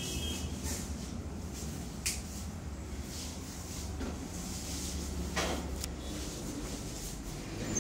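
Steady low rumble of indoor room ambience, with a few faint knocks and clicks scattered through it.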